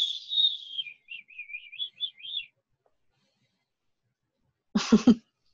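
A high, whistle-like chirping that wavers quickly up and down in pitch for about two and a half seconds. A short vocal sound follows near the end.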